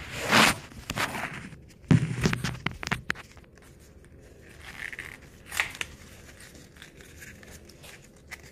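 A small cardboard product box being opened by hand: scattered rustling, tearing and clicking of the card, loudest near the start and again about two seconds in.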